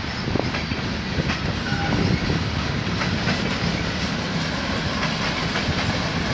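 Covered hopper cars of a CN freight train rolling past at steady speed, steel wheels clicking over rail joints over a continuous rumble.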